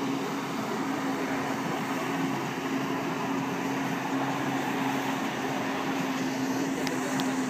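Steady drone of a watercraft engine, with a constant unchanging hum.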